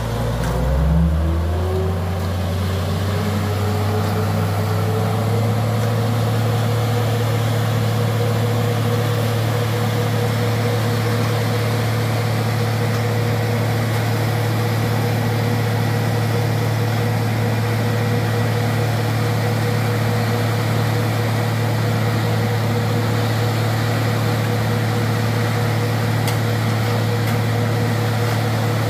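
The engine of the road-concreting machinery speeds up over the first few seconds, its pitch rising, then runs steadily at a raised speed with a strong low hum.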